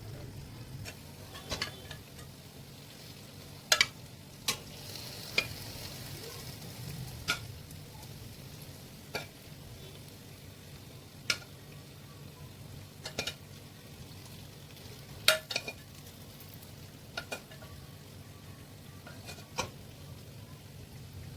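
Food frying in hot oil with a steady sizzle, while a utensil knocks sharply against the pan about a dozen times at irregular intervals.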